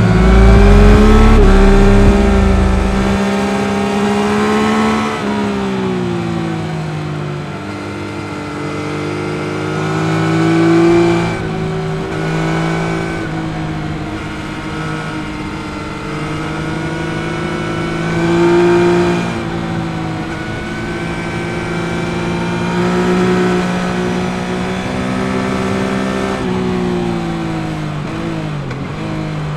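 Yamaha MT-09 SP's three-cylinder CP3 engine and stock exhaust while riding, the revs rising and falling as the throttle opens and closes through the bends, with louder surges around a third and two-thirds of the way through.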